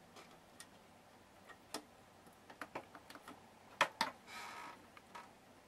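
Light scattered clicks and taps of a small jumper being handled and pushed back onto its pins inside an opened Icom IC-R7100 receiver. The loudest pair of clicks comes about four seconds in, followed by a brief soft scrape.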